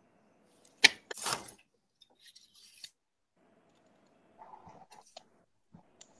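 Small handling noises coming through a video-call line: one sharp click, then a brief scraping rustle, then a few faint scattered ticks and knocks. The line goes dead quiet in between, as it drops out on a weak Wi-Fi connection.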